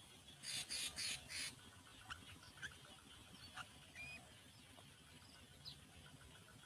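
White egret giving four harsh squawks in quick succession about half a second in, followed by a few faint short chirps over a faint steady ticking.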